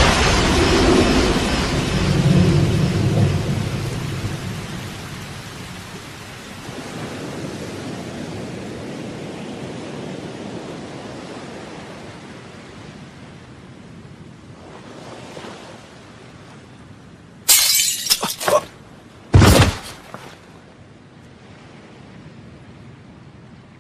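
Storm sound effects of steady rain with a low rumble of thunder, loud at first and slowly fading to a quiet hiss. Then two sharp crashes about a second and a half apart, the second with a heavy low thud.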